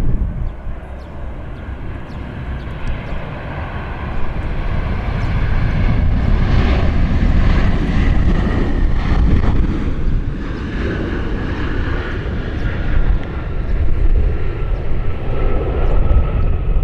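Airliner engines passing close on a landing approach: a loud, steady rumble with whining tones that slowly fall in pitch over the second half, and strong gusting wind buffeting the microphone.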